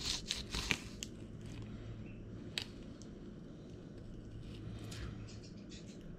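Fillet knife cutting through a small Rio Grande cichlid on a plastic cutting board: scratchy, crunching strokes through scales and rib bones. The strokes come thickest in the first second, with one sharp click a little past two and a half seconds and fainter scraping later on.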